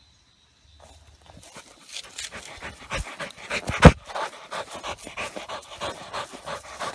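German shorthaired pointer panting rapidly and rhythmically close to the microphone, starting about a second in, with one loud knock near the middle.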